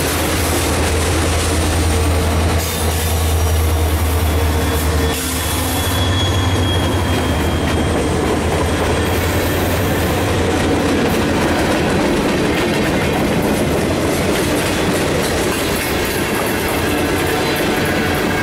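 Freight train passing close by: the locomotives' diesel engines give a steady low hum for the first several seconds, then the cars roll past with rail clatter and some wheel squeal.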